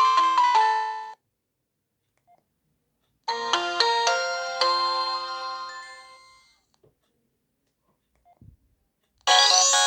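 Alcatel OneTouch E801 mobile phone playing its ringtones through its speaker, one after another. One melody stops about a second in; another starts about three seconds in and fades out; a third begins near the end with a rising sweep. Silent gaps lie between them, with a few faint clicks.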